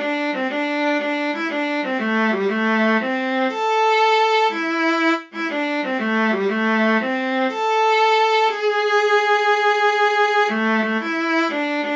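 Solo viola playing a single melody line in a steady lilting rhythm, with notes held longer at about four and eight seconds in and a long held note from about nine to ten and a half seconds. The sound dips out briefly a little after five seconds.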